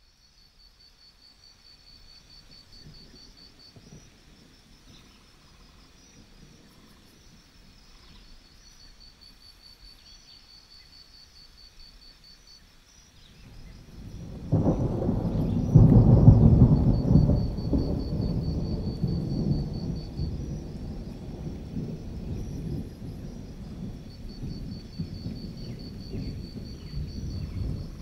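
Crickets chirping in pulsing trills that come and go every few seconds over a faint low rumble. About fourteen seconds in, a loud roll of thunder sets in, peaks a couple of seconds later and rumbles on as it fades, and another roll begins near the end.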